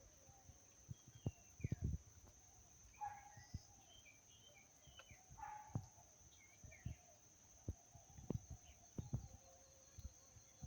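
Faint birds chirping outdoors, scattered short chirps with a couple of clearer calls about three and five and a half seconds in, over frequent low thumps.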